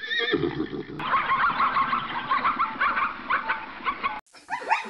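Zebras calling: a run of repeated barking, braying calls, two or three a second. About four seconds in the sound cuts abruptly to a clearer series of quick, rising yelping calls.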